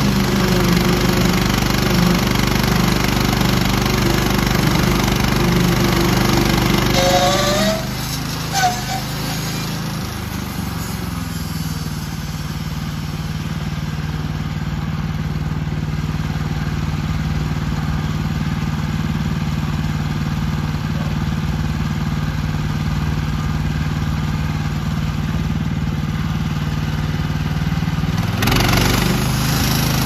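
Woodland Mills HM130MAX portable bandsaw mill, its engine running under load as the band blade cuts through an ash log. About eight seconds in the cut ends with a short rising tone and a knock, and the engine runs on more quietly and steadily. Near the end the blade bites into the log again and the louder cutting noise returns.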